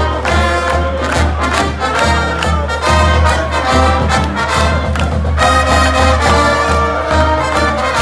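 Brass band music with trumpets and trombones playing an upbeat tune over a steady low beat.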